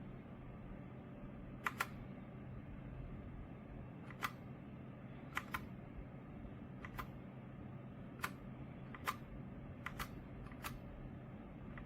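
Single keys on a Redragon K668 mechanical keyboard being pressed one at a time, giving about ten sharp separate clicks at irregular intervals, several in quick pairs. A steady faint low hum runs underneath.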